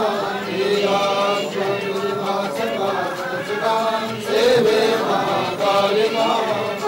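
Devotional aarti chanting sung over music, with pitched sung phrases above a steady held drone.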